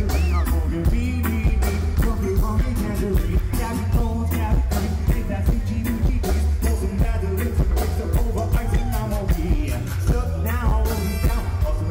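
Live reggae band playing loud through a stage PA: a man singing into a microphone over heavy bass and a steady drum-kit beat, with electric guitar and a horn section of saxophones and trumpet.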